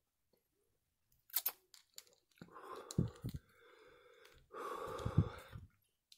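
A man blowing out two long, heavy breaths through an open mouth, after a few sharp mouth clicks: huffing against the chili burn of a Carolina Reaper tincture just dropped on his tongue.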